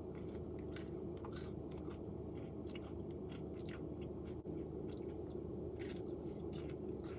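A person biting into and chewing a thick, firm oatmeal cookie: a run of small irregular chewing clicks, with a fresh bite near the end.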